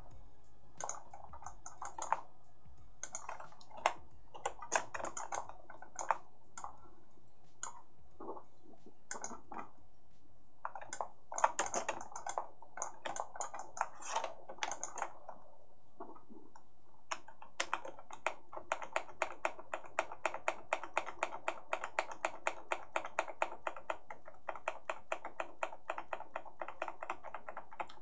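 Computer keyboard keys clicking, as scattered irregular presses at first, then a quick even run of about five presses a second from a little past halfway until near the end.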